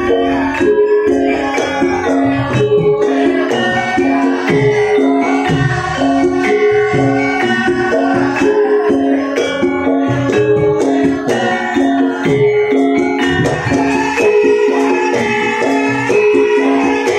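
Javanese gamelan music accompanying a dance: metallophones play a repeating melody over a steady beat, with a jingling rattle on top.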